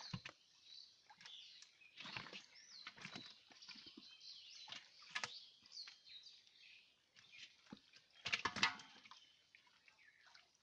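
Small birds chirping and twittering over quiet outdoor background, with scattered short knocks and a brief, louder burst of noise about eight seconds in.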